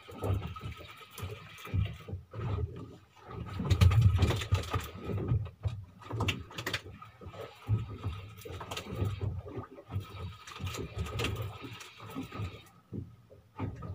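Wind buffeting the microphone in uneven gusts, with scattered knocks and clatter on the boat.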